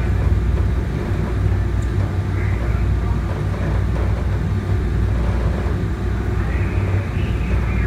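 MBTA Green Line light rail car running along the track, heard from inside the car: a steady low rumble.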